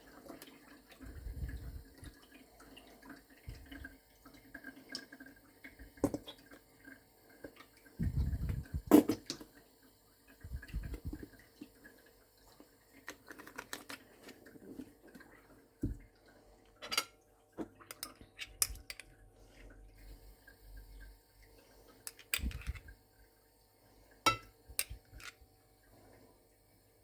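Kitchen clatter of dishes, pans and cutlery being handled: scattered knocks and clinks with a few dull thumps, the loudest knock about nine seconds in.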